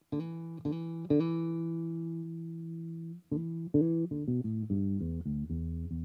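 1980 Yamaha Pulser Bass PB-600 electric bass being played: one note plucked three times and left ringing, then a quicker run of notes stepping down to a low note that is left to sustain.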